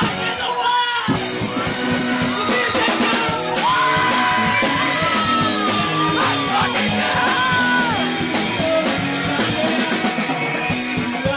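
Live rock band playing loud, with a male singer over electric guitar and drum kit. The full band comes in hard about a second in.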